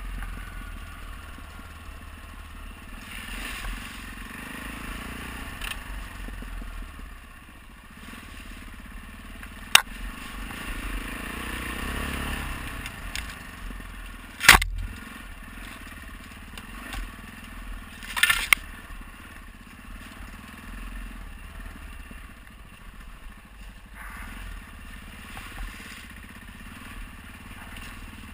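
Adventure motorcycle engine running at low revs over a rough rocky dirt trail, with sharp clattering knocks as the bike jolts over rocks. The loudest knock comes about halfway through, with others a few seconds before and after.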